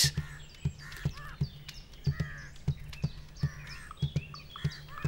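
New Caledonian crow pecking and tapping at a fallen log as it probes the wood for larvae, making a string of irregular sharp taps about two or three a second. Short bird calls and chirps sound over the taps.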